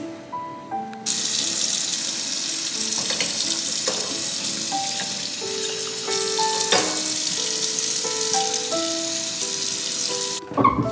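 Kitchen tap running into a sink while a drinking glass is rinsed under the stream. The water comes on about a second in and shuts off just before the end, over soft background music.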